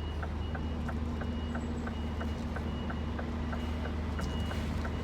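Scania lorry's diesel engine running steadily at low revs, heard from the cab while the truck reverses a trailer onto a loading bay. Over it are regular ticks about three a second and a faint repeating beep from the reversing alarm.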